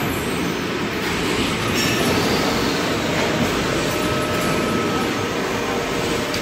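Avocado pitting machine running: a steady, dense mechanical clatter.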